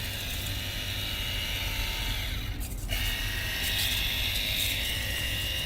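Cordless pressure washer gun running, its pump motor whining steadily over the hiss of the water jet. The sound cuts out briefly about two and a half seconds in, then starts again at a slightly different pitch.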